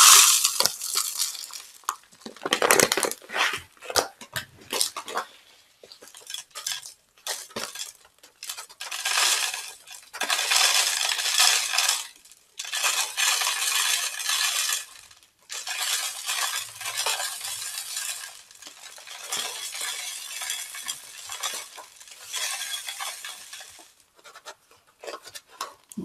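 Bird seed pouring from a bag through a paper cone into a plastic bottle, a dry rattling hiss in spells of one to three seconds with short pauses between them.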